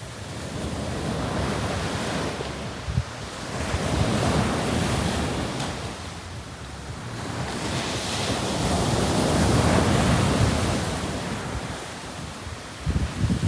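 Ocean waves breaking and washing up the beach in slow swells, each rising and falling over a few seconds. Gusts of wind buffet the microphone now and then, briefly about three seconds in and again near the end.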